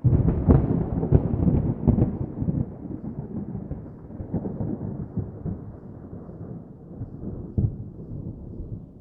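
Distant thunder: a rumble that breaks in suddenly with a run of cracks over the first two seconds or so, then rolls on low and slowly fades, with one more sharp crack near the end.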